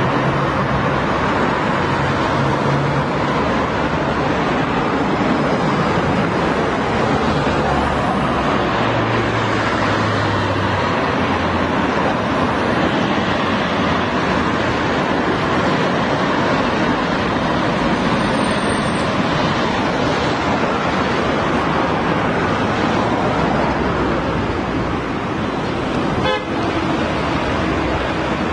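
Steady, dense street traffic: car and motorbike engines running and tyres passing, with car horns tooting now and then.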